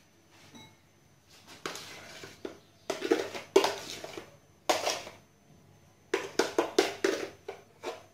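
A metal spoon scraping and knocking against bowls as soft whipped cream is scooped out and shared between them. It comes in several short bursts a second or so apart.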